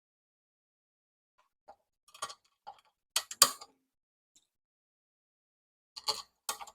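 Short metal clicks and clinks of machine bolts and a steel side panel being handled and fitted by hand on a powder-coated steel tool rack: a cluster of them between about two and four seconds in, and a few more near the end.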